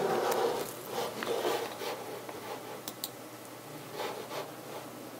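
Rustling and rubbing of handling noise as someone moves close to the microphone, with two quick sharp clicks about three seconds in.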